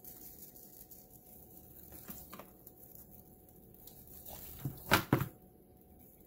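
Quiet handling of a raw whole chicken on a plastic plate, with a few faint taps, then two sharp knocks close together about five seconds in as the bird is turned over onto the plate.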